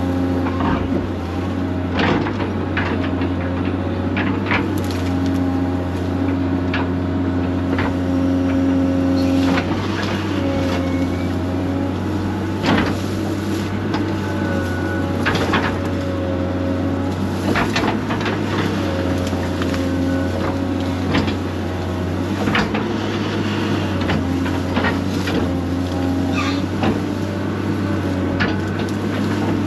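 Excavator's diesel engine running steadily while digging out stumps, its note shifting slightly now and then as the hydraulics take load. Scattered sharp knocks and clanks sound through it.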